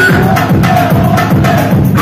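Loud, amplified electronic music for a Kurdish govend halay line dance: a fast, steady drum beat under a high, winding melodic lead.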